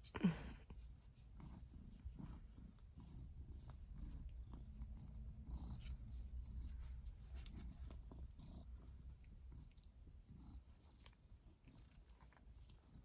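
Ginger cat purring faintly while being stroked, a low steady rumble that is strongest midway. Right at the start, a brief sharp sound falling steeply in pitch, the loudest thing heard.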